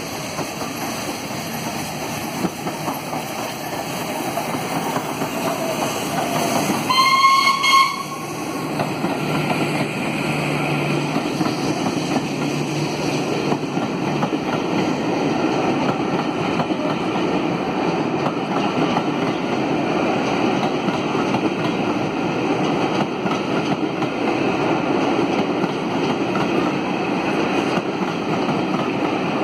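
Steam locomotive 60163 Tornado, an LNER Peppercorn A1 Pacific, passing through a station. About seven seconds in it gives one loud steam whistle, roughly a second long and slightly rising. After that come the steady rumble and clatter of its coaches rolling past on the rails.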